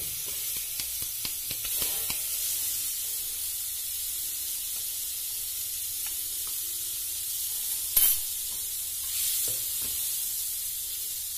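Margarine sizzling steadily as it melts in a hot wok, with small scrapes and taps of a wooden spatula in the first couple of seconds and one sharp clack about eight seconds in.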